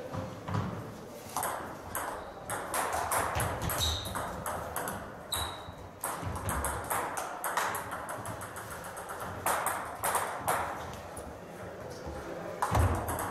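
Table tennis balls clicking off the rackets and the table in fast rallies, many sharp ticks in quick succession, with a couple of short high squeaks.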